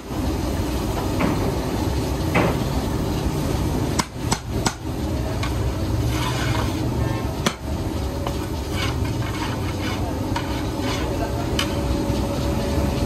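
A long-handled metal ladle stirring a huge steel pot of boiling pulao, scraping through it and knocking sharply against the metal now and then, with a cluster of knocks about four seconds in. A steady boiling rush runs underneath.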